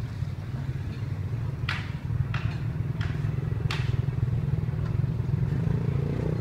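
Steady low rumble of street noise, like engine traffic, with four short, sharp clacks in quick succession between about two and four seconds in.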